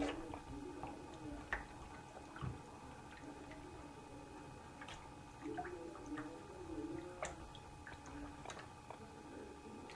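Wet hands rubbing together and splashing in water in a sink, with small drips and scattered light clicks and splashes.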